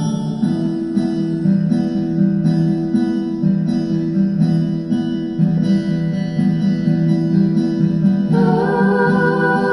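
Acoustic guitar playing an instrumental passage of the song, chords changing every second or so. Near the end a voice comes in on a held, wavering sung note.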